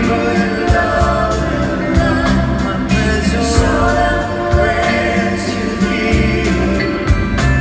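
Live band music: a male singer with backing voices over acoustic guitar, bass and a steady drum beat.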